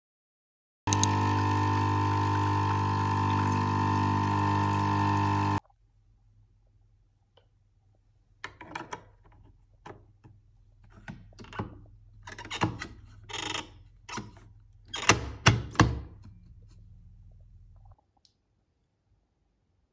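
A loud, steady electric hum for about five seconds that cuts off abruptly, followed by a series of light clicks and knocks over a faint low hum.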